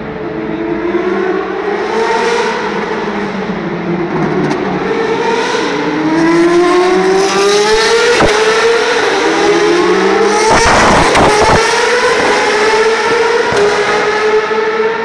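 Open-wheel racing cars running past on the circuit, their high-revving engines climbing in pitch again and again as they accelerate through the gears, several cars overlapping. A few sharp clicks come around the middle.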